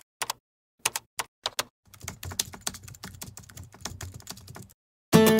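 Computer keyboard typing sound effect: a few separate keystrokes, then a quick run of typing for about three seconds. An acoustic guitar chord is strummed near the end.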